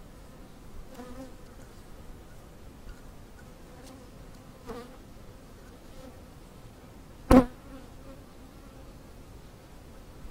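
Honeybees buzzing around an open hive, a steady hum with single bees buzzing close past now and then. A single sharp knock about seven seconds in is the loudest sound.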